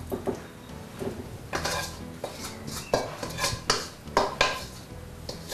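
A metal spoon scraping and clinking against a wok and a serving dish as the cooked chicken is spooned out. Irregular knocks and scrapes come in a busy run through the middle.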